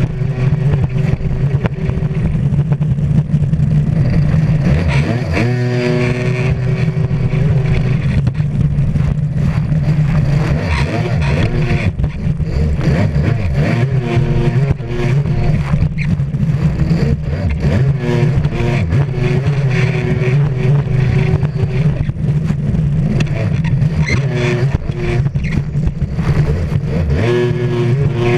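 Stand-up racing jet ski's engine running hard at speed, heard from on board, with the hiss of spray and wind. The engine note drops and climbs back up about five seconds in, and again a couple of times later.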